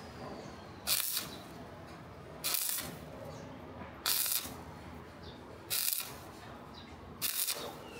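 Stick (shielded metal arc) welding arc on steel crackling and hissing. It flares into a louder sizzle about every one and a half seconds, five times.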